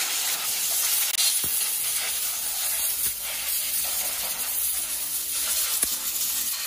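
A high-pressure jet hissing steadily and fairly loudly, a service-workshop air or water spray blowing without a break.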